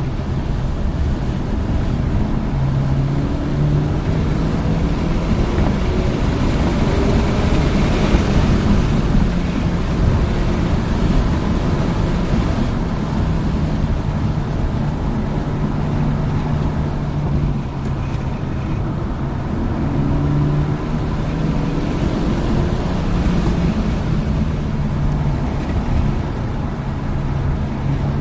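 Hyundai Elantra N's turbocharged 2.0-litre four-cylinder engine pulling hard on track, with heavy wind and road noise. The engine note climbs twice, lifts off briefly before the second climb, and rises again near the end.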